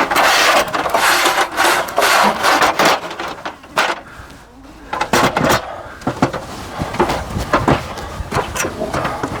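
Self-adhered window flashing tape being handled and peeled from its backing: a rustling, rubbing noise for about the first three seconds, then scattered light knocks and rubs as it is positioned.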